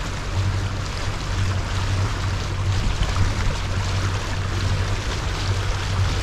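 Sailing yacht under way on engine: a steady low drone from its inboard diesel, with a hiss of water moving past the hull.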